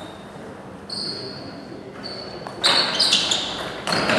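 Table tennis ball being served and rallied: a quiet start, then, a bit past halfway, a quick run of sharp clicks as the ball strikes bats and table.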